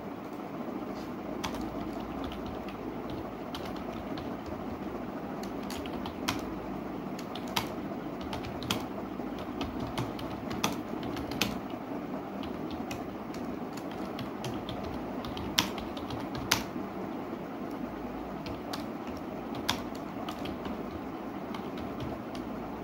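Typing on a computer keyboard: irregular key clicks with a few louder taps scattered through, over a steady low background noise.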